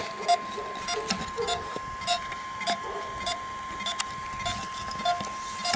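Short animal calls repeating at an even pace, a little under two a second, over a faint steady tone.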